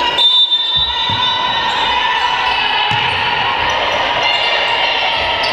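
A basketball bouncing on a wooden sports-hall court during play, a few separate thumps, with players' voices in the background.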